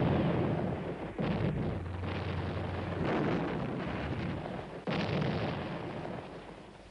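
Battle sound effects of heavy gunfire: deep booms with rumbling tails, a fresh blast about a second in and another about five seconds in, the rumble fading away near the end.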